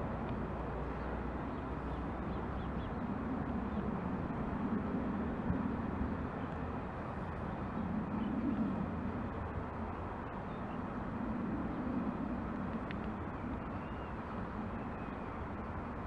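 Outdoor railway station ambience: a steady rumble that swells and fades slowly as a DB Talent 2 electric multiple unit approaches in the distance, with a few faint bird calls.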